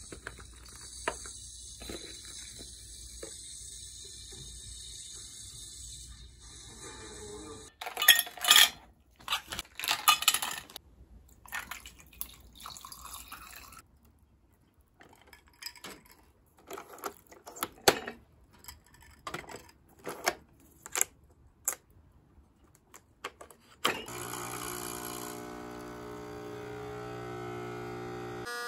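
Kitchen sounds: a steady hiss like a running tap for several seconds, then loud clattering and a string of scattered knocks and clinks of dishes. Near the end a steady electric buzzing hum starts.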